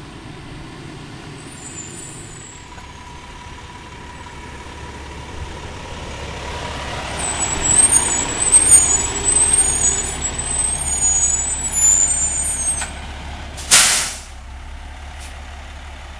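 Sewer vacuum tanker truck's engine running as it drives up and pulls alongside, growing louder as it nears, with a high wavering squeal from the brakes as it slows. Near the end a short, sharp hiss of the air brakes is heard as the truck stops.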